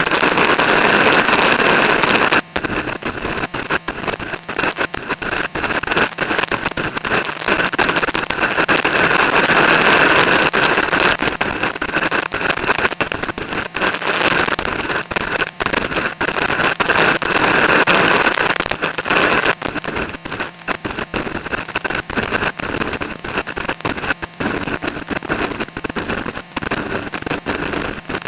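Heavy wind buffeting the microphone during a ride on a Suzuki GSX-R motorcycle: a loud, rough rush that crackles and cuts in and out rapidly, swelling louder a few times.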